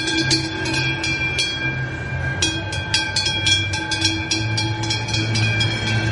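A cowbell on a cow's wide leather collar, clanging again and again as the cow walks: a quick, uneven run of strikes, each leaving a ringing tone. Under it runs a low steady hum.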